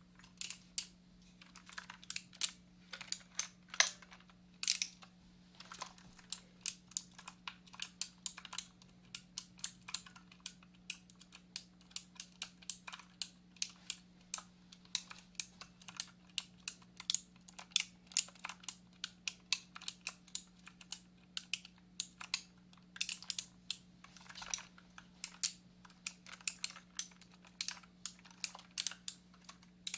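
Computer keyboard typing: quick, irregular keystroke clicks, several a second, over a steady low hum.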